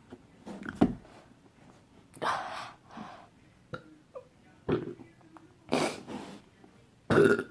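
A boy's heavy, noisy breaths in about six short bursts, the loudest near the end, from a painfully over-full stomach after chugging two litres.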